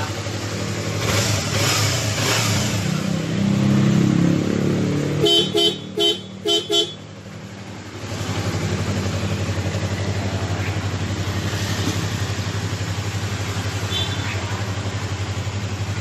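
Yamaha MT-25's aftermarket horn giving four short toots in about two seconds, working again now that its unconnected fuse has been put right, over a motorcycle engine idling steadily.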